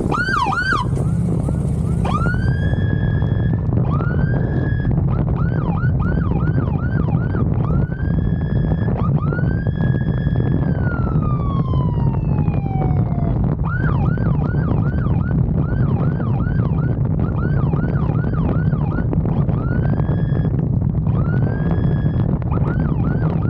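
Police motorcycle siren sounding in a mix of short quick whooping chirps and longer wails that rise and hold, with one long wail falling away about a dozen seconds in. Under it runs a steady low rumble of the motorcycle's engine and road wind.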